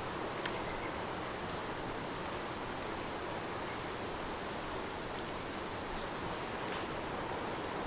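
Steady rain hiss, with a few faint high chirps about a second and a half in and again around the middle, and a soft tick near the start.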